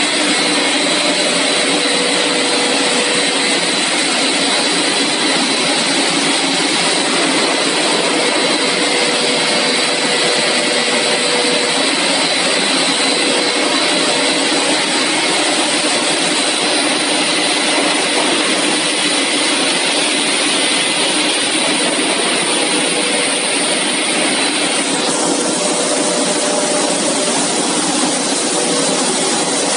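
Steady loud hum and hiss of a running CPP cast film extrusion line: its extruder drive motors and their cooling fans, with faint steady whining tones through the noise.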